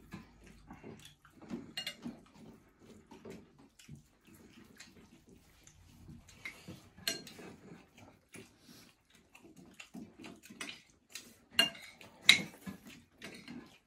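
People eating rice and curry with their fingers from metal plates: scattered light clinks and scrapes against the plates, with soft chewing and lip-smacking. Two sharper clinks near the end are the loudest.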